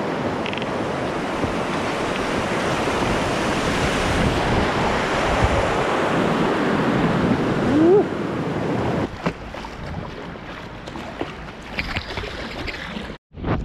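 Wind buffeting the microphone over choppy water around a kayak, a steady rushing noise that eases after about nine seconds. A short rising squeak about eight seconds in, and the sound cuts out for a moment near the end.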